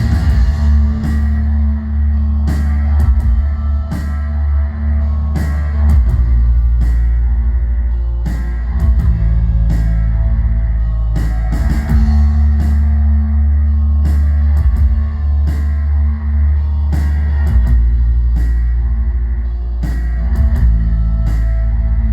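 A live post-punk rock band playing an instrumental passage: a heavy, droning bass line under guitar, with drum-kit hits and no singing.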